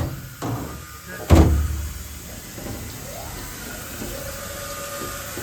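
A few clunks, then one loud bang with a low ringing decay about a second and a half in, followed by a steady mechanical hum with faint high held tones.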